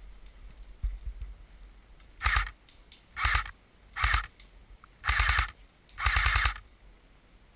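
AK-47-style CYMA airsoft electric gun (AEG) firing five short full-auto bursts, each a fast rattle of its motor and gearbox cycling and lasting under a second; the last two bursts are a little longer.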